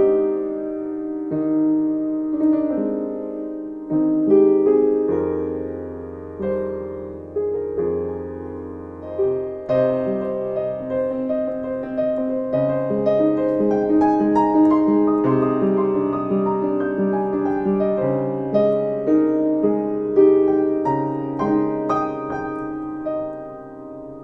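Background music: slow solo piano playing sustained chords and a gentle melody.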